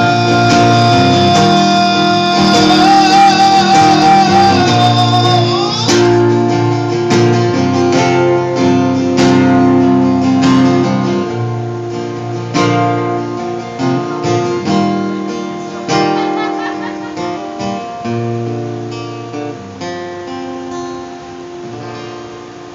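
Acoustic guitar strummed while a voice holds one long wavering note that ends about six seconds in; the guitar then strums on alone, getting steadily quieter to close the song.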